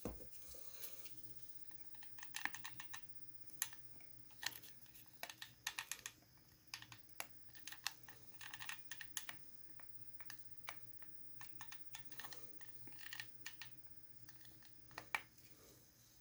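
Irregular run of light clicks and taps, a few to several a second with short pauses, over a faint steady low hum.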